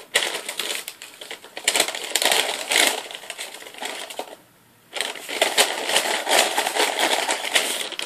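Brown paper bag rustling and crinkling as a hand rummages inside it for a folded number slip, with a brief pause a little after halfway.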